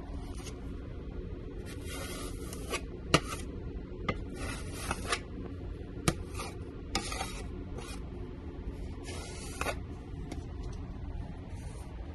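Metal putty knife scraping and smoothing white wall filler along wooden trim in repeated short strokes, with a couple of sharp taps of the blade.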